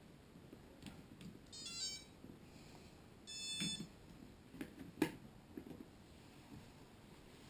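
Electronic startup beeps from a 3DR X8 multirotor as its battery is connected during an APM 2.6 reset: a quick run of stepped notes, then a single longer beep about a second and a half later. Several small handling clicks follow, the sharpest about five seconds in.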